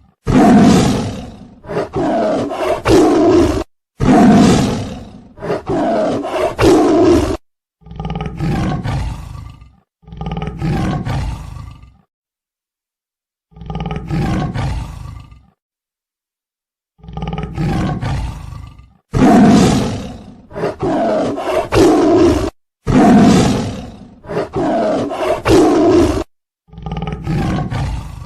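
Tiger roaring over and over, a long series of loud, rough roars each a second or two long, with two short silent pauses around the middle.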